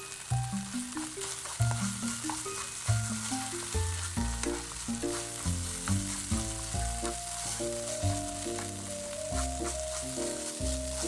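Food sizzling as it fries in a pan, a steady hiss, over background music with a plucked-sounding melody and bass line.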